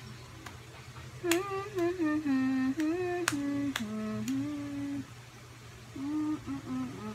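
A woman humming a simple tune in short held notes, stepping up and down in pitch, from about a second in until about five seconds, then starting again near the end. A few sharp clicks fall among the first notes.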